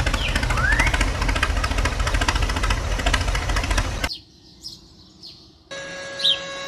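Tractor engine running with a fast, even knocking, which cuts off abruptly about four seconds in. After it, a few short bird-like chirps sound over a steady hum.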